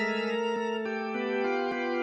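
Background music of held, sustained notes that move to a new pitch every half second or so, with a light ticking beat underneath.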